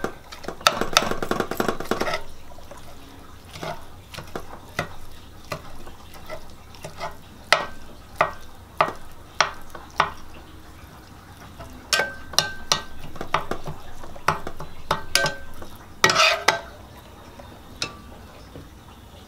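Slotted turner chopping and stirring lean ground meat in an electric skillet: irregular sharp clicks and scrapes of the utensil against the pan, busier about a second in and again near the end, over a light sizzle of the browning meat.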